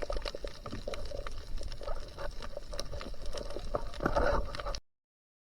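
Dense, irregular crackling and clicking, typical of underwater ambience heard on a diving camera, with a louder swell about four seconds in. It cuts off abruptly to silence near the end.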